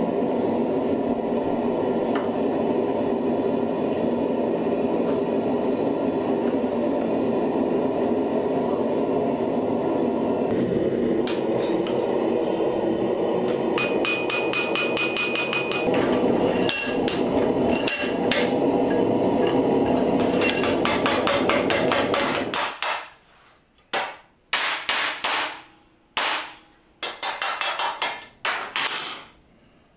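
Steady rush of a gas forge burner. From about a third of the way in, hand-hammer blows strike hot steel on the anvil, with a high anvil ring. About three-quarters through the burner noise stops suddenly, and a few short, rasping strokes follow, typical of filing the steel.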